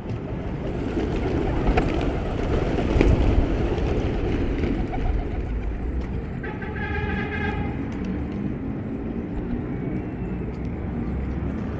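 A flock of pigeons flapping past close overhead and coming in to land, with a rushing clatter of wings that is loudest in the first few seconds. A brief pitched horn-like tone sounds for about a second near the middle.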